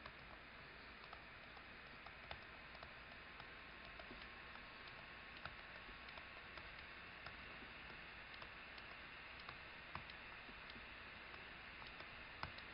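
Near silence with faint, irregular light ticks of a stylus tapping and writing on a tablet screen.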